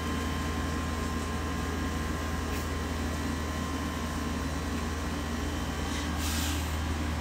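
Steady low hum with faint background hiss, and a brief soft rustle about six seconds in.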